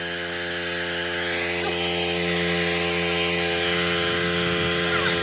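Craftsman pressure washer's engine running steadily while its high-pressure spray hisses against a lawnmower deck, the hiss swelling through the middle.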